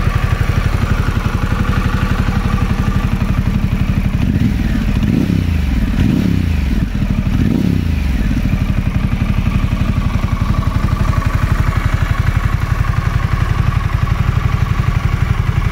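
2021 Harley-Davidson Pan America Special's 1250 cc Revolution Max V-twin running through a Screaming Eagle muffler, idling with a steady pulse. About four seconds in the throttle is blipped three times in quick succession, each rev rising and falling back, before it settles to idle again.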